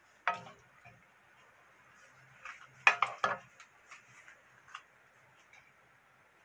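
A wooden spatula knocking against a frying pan and a plate while food is dished up. One knock comes shortly after the start, the loudest come as a quick run of three about three seconds in, and a few lighter taps follow.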